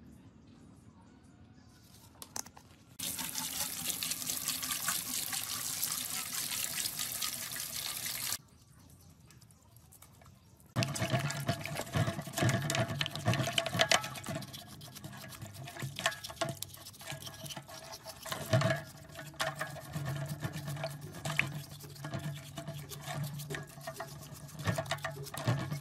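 A steady rush of water for about five seconds, then after a short pause a stiff brush scrubbing a small saw motor and its wiring in a basin of water: irregular scraping strokes with splashing.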